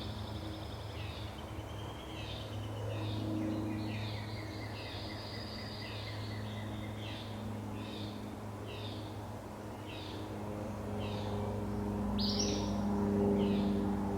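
Birds singing: a short high chirp repeated over and over, about once or twice a second, with a longer trilling song a few seconds in and a sharper call near the end, over a steady low hum.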